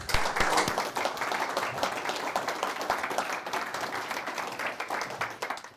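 Audience applauding: dense, many-handed clapping that cuts off abruptly near the end.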